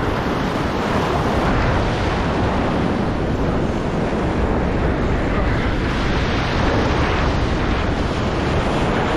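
Ocean surf washing and breaking in the shallows, a steady loud rush, with wind buffeting the microphone.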